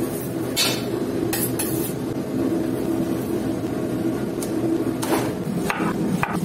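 Metal hanging chains clinking and rattling several times as a whole raw lamb carcass is hung up, over a steady low hum.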